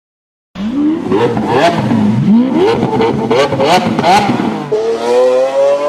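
Sports car engine revving hard in short rising bursts with sharp exhaust cracks, then settling into one long, steady rise in pitch as it accelerates.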